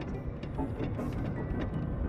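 Haunted-house horror soundscape with a dense, continuous low rumbling drone. Scattered clicks and knocks run through it, with brief hissing swells about once a second and a faint thin high tone.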